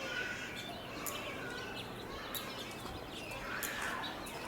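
Small birds chirping, short high chirps about once a second, over a steady background din.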